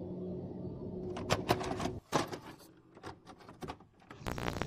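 Irregular crackling clicks of a video glitch, dense and loud for about a second, then sparser and fainter. A little past four seconds in, steady tape hiss with a low hum cuts in suddenly.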